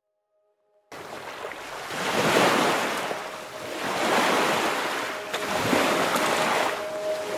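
Choppy lake waves washing onto a pebble shore in wind, the surge swelling and falling back about every two seconds. It starts abruptly about a second in.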